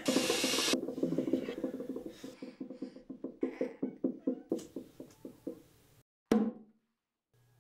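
Hand drum beaten in a fast, even run of strikes that slowly fade away. After a short gap, one last loud hit comes about six seconds in and then stops. A brief burst of hiss opens the sound.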